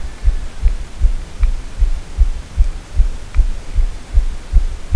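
Spinning reel being cranked steadily while reeling in a hooked carp. The handle's turning comes through as a low rhythmic thudding, about three beats a second, with a few faint clicks.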